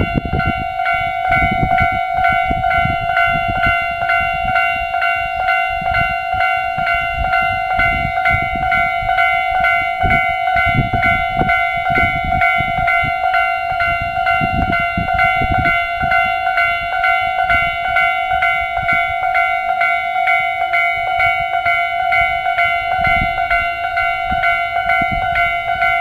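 Japanese level-crossing warning alarm in the Tobu Railway standard tone, ringing continuously in even strokes, about two a second, as the crossing stays active.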